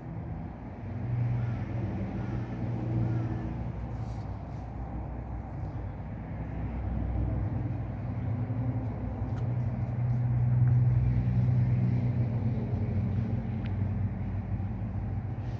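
A low engine hum that swells louder and eases off several times, loudest about two-thirds of the way through.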